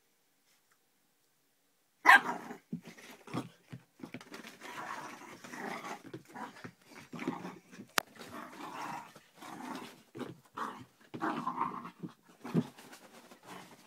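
A 16-week-old whippet–Jack Russell cross puppy playing. It is silent for the first two seconds, then gives a sharp yap, followed by playful growling and short barks over scuffling on the bedding.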